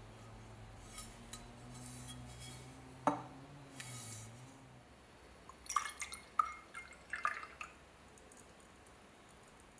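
A low steady hum with faint handling noise and one sharp click about three seconds in. About six seconds in comes a quick cluster of small drips and glassy plinks of liquid in a glass beaker.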